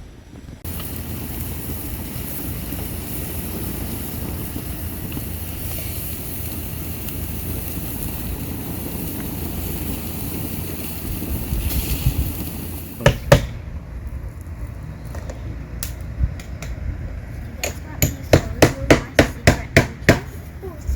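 Hammer driving nails into siding: a couple of single knocks, then a quick run of about ten strikes near the end. Before the hammering there is a steady rushing noise for roughly the first two-thirds.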